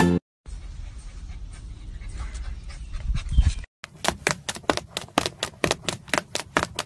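A puppy panting fast, about five short breaths a second, starting about four seconds in. Before that there is a low rumbling background noise.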